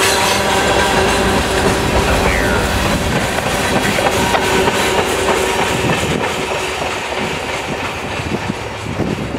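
Freight cars (covered hoppers and steel coil cars) rolling past at track speed, their wheels clattering on the rails with a few ringing squeal tones. The sound fades over the last few seconds as the end of the train passes and moves away.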